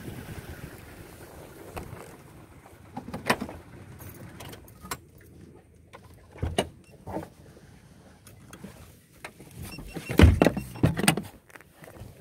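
Footsteps on dry leaves and pine needles with scattered clicks and knocks, and a louder cluster of thumps about ten seconds in.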